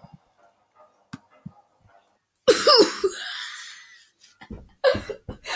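A person coughs once, loud and sharp, about two and a half seconds in, after a near-silent stretch broken only by a few faint clicks. Short, sharp sounds start again near the end.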